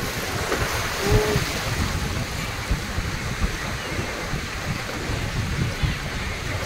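Arabian Sea surf washing onto a sandy beach: a steady rushing hiss, with irregular low wind gusts buffeting the phone's microphone.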